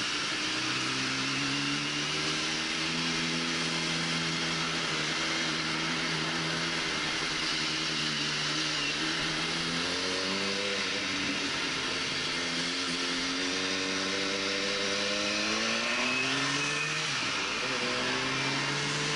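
Motorcycle engine running while riding in traffic, with a steady rush of wind. Its pitch holds for several seconds, then twice climbs as the bike accelerates and drops back at a gear change, about halfway through and again near the end.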